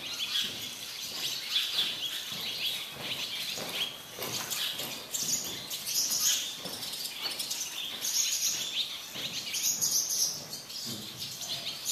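Small birds chirping steadily: many short, high chirps overlapping throughout.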